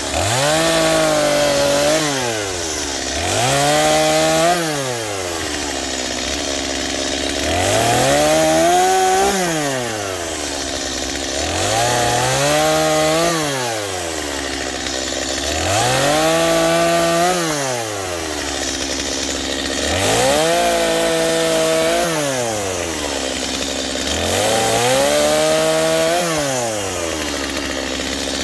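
Two-stroke chainsaw cutting firewood to stove length: the engine revs up and holds high through each cut, then drops back to idle, about seven cuts roughly four seconds apart.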